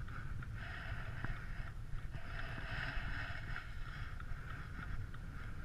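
Inside the cabin of a 2005 BMW E90 320i with its 110 kW four-cylinder engine, driving on a snow-covered road: a steady low engine and road rumble under a rushing hiss of tyres on snow and slush that swells and fades.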